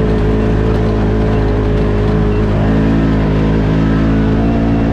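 Polaris RZR side-by-side's engine running steadily under way, heard from inside the open cab.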